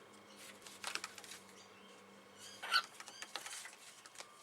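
Cockatiel giving one short squeak about two-thirds of the way through, with a few faint taps and rustles of paper as it picks at bits of paper on a table.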